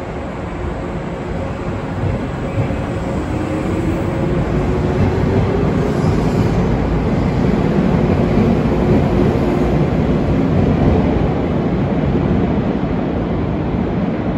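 413 series electric multiple unit pulling out and accelerating past, its traction motors humming and rising in pitch over a heavy rumble of wheels on rail. It grows louder as the cars go by and eases slightly near the end as the train leaves.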